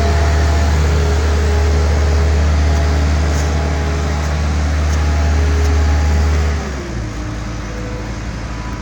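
Heavy diesel engine of road-paving machinery running steadily, a loud low hum with steady tones above it. About six and a half seconds in, the hum drops off sharply to a quieter, rougher running.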